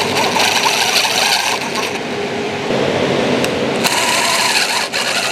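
DeWalt cordless impact driver running in its rapid hammering rattle as it drives small screws into the rail's mounting block, locking the rail in place. It runs almost without pause, easing off briefly a little under three seconds in, then picking up again.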